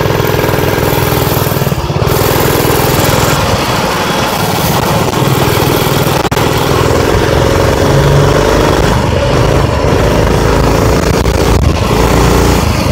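Mini bike's Predator 212cc single-cylinder four-stroke engine running under load as the bike rides along, its pitch rising and falling. The old clutch is overheated and slipping on a hot day.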